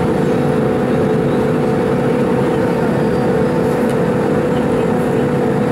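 Steady cabin noise of an Airbus A310 on final approach, heard from a seat over the wing: engine drone and rushing air, with a steady low hum.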